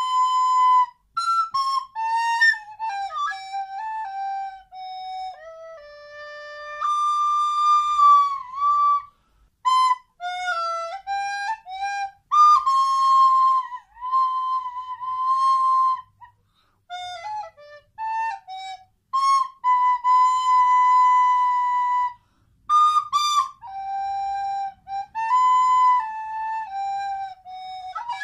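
A solo tune on a flute-family wind instrument: a single line of notes, some held for a second or two, broken by short pauses, with no accompaniment.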